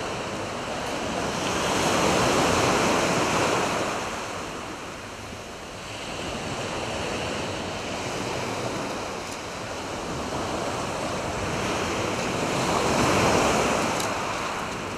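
Surf breaking on a sandy beach, the noise of the waves swelling and washing back, loudest about two seconds in and again near the end.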